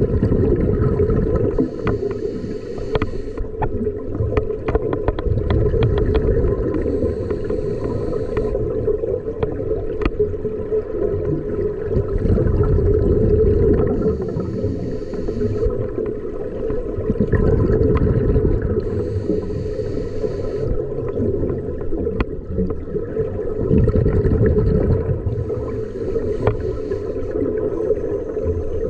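Scuba diver breathing through a regulator underwater: a high hiss of breath and bubbles comes and goes about every five to six seconds over a steady low rumble, with scattered sharp clicks.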